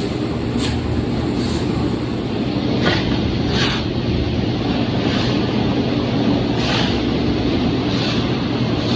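Combine harvester running steadily while its grain tank is unloaded: a constant engine drone, with short swishing noises coming every second or two.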